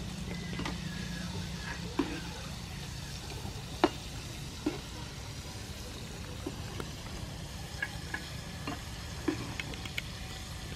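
Battered squid rings deep-frying in a wok of hot oil, a steady sizzle, with a few sharp clinks of a metal wire skimmer against the pan.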